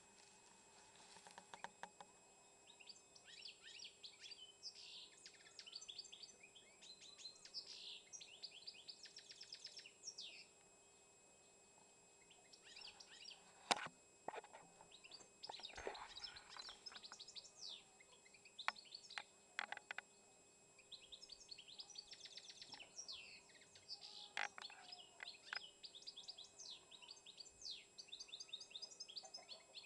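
Caged songbird singing long phrases of rapid, high chirps and trills, with a pause of a couple of seconds about a third of the way in. A few sharp clicks cut in, the loudest about 14 seconds in.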